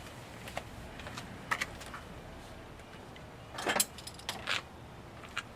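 A few light clicks and taps, then a brief jingle of keys about three and a half seconds in, over a faint steady background hum; the announced cold start has not begun.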